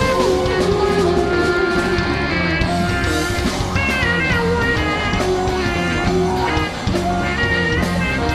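Psychedelic rock band playing: electric guitar lines over a steady bass and drum rhythm.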